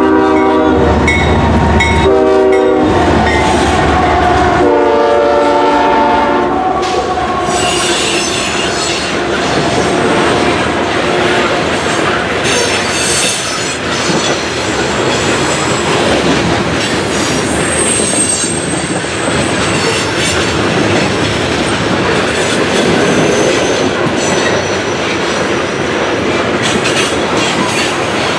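CSX freight locomotive horn blowing three blasts in the first seven seconds, two longer ones around a short one. After that the coal train's hopper cars roll past with steady wheel clatter on the rails and scattered high-pitched wheel squeal.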